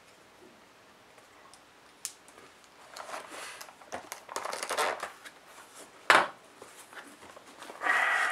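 Foam and plastic packaging wrap crinkling and rustling as it is cut and pulled off a pen box, in bursts after a quiet start. A sharp knock about six seconds in, and louder rustling near the end.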